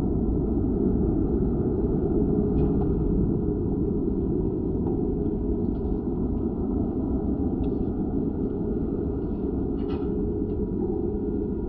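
Low, steady rumble of a light-rail platform, slowed down with the slow-motion footage, as a TRAX light-rail train pulls in, with a few faint ticks.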